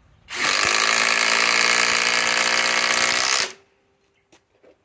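SKIL PWR CORE 20 cordless impact driver hammering a long timber-lock screw into a wooden beam: a loud, steady, rapid rattle for about three seconds that cuts off suddenly as the screw seats.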